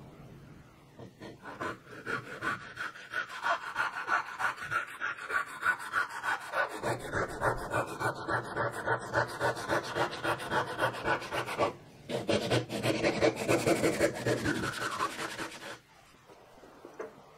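Japanese pull saw crosscutting a red oak board by hand: even rasping strokes, about three a second, with a short break about twelve seconds in. The sawing stops shortly before the end.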